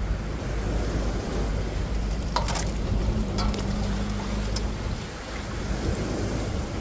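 Steady sea surf and wind on the microphone, with a few short splashes and clinks between about two and five seconds in as raw chicken pieces are washed by hand in a steel bowl of water.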